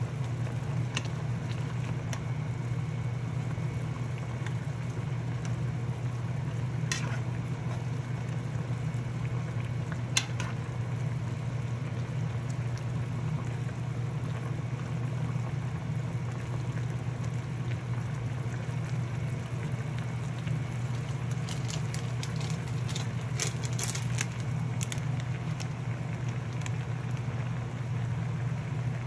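Ramen cooking on the stove: a steady bubbling boil over a constant low hum, with a few sharp clicks scattered through it and a small cluster of them near the end.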